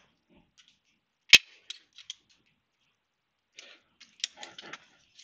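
Small steel screwdriver bits clicking and rattling in a plastic bit case, with one sharp snap about a second and a half in and a patch of lighter clicking and clatter near the end.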